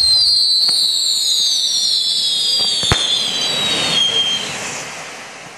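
Whistling fireworks: several shrill whistles start together and slide slowly down in pitch, with a few sharp pops and crackles, the loudest about three seconds in. The whistling fades out near the end.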